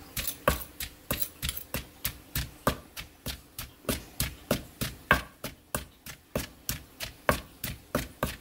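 Wooden pestle pounding chopped cilantro and chili paste in a wooden mortar, in a steady rhythm of about three to four strikes a second, bruising the herbs.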